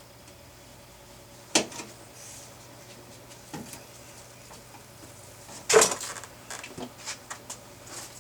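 Sharp clacks and light clatter of small hard tools or parts being handled and set down: one clack about a second and a half in, a louder one near six seconds, then a few lighter ticks.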